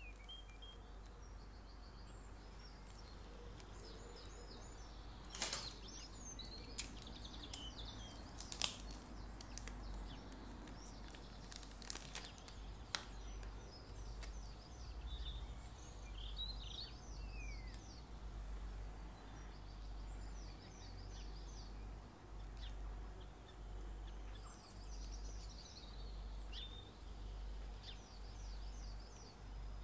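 Birds chirping in short repeated trills over a low steady hum, with a few sharp clicks and taps between about 5 and 13 seconds in as a cardboard perfume box is turned over in gloved hands.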